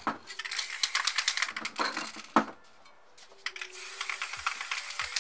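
Aerosol spray paint cans in use: the hiss of spraying mixed with quick clicking rattles, typical of a can's mixing ball being shaken. A short lull comes just before halfway, then spraying and clicking resume.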